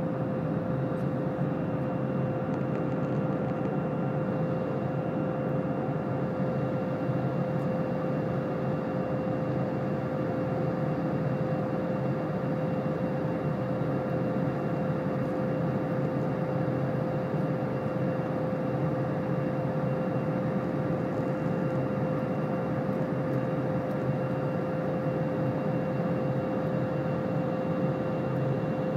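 Steady drone of an aircraft in flight heard from inside the cabin: an even rushing noise of engines and airflow with a constant mid-pitched hum over it.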